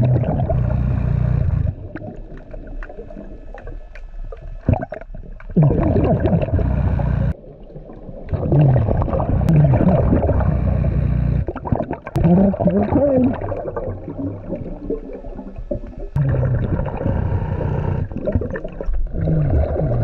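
Muffled underwater gurgling and bubbling, heard through a submerged camera, with short low sliding tones. The sound changes abruptly several times.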